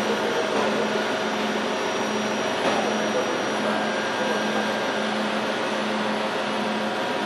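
Steady whirring hum of a Pfauter P 1503 CNC gear hobbing machine running, with a low tone that cuts in and out at intervals.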